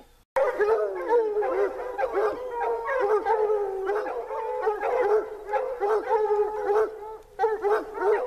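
Several hounds baying at a mountain lion cornered in a rock cave, their overlapping calls going on without a break. The sound starts abruptly just after the first moment and dips briefly about seven seconds in. The baying is the sign that the lion is bayed up.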